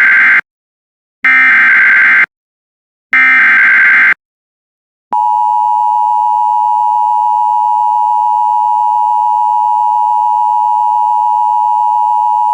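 Emergency Alert System broadcast: the last of the three SAME digital header bursts, three harsh buzzing data bursts about a second long each, followed about five seconds in by the steady two-tone EAS attention signal, which holds to the end.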